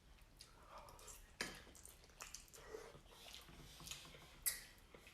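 Faint, wet mouth sounds of someone eating creamy chicken Alfredo pasta: chewing and lip smacks, with a couple of sharper clicks.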